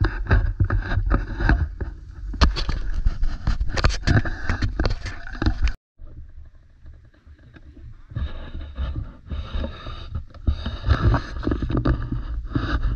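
Footsteps crunching and scraping on a hiking trail, irregular and quick, over steady wind rumble on the microphone; the sound cuts out abruptly about halfway through and comes back quieter before picking up again.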